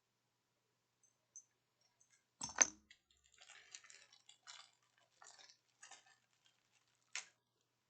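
Small items being handled: a sharp knock about two and a half seconds in, then light rustling and clicking, and a sharp click near the end.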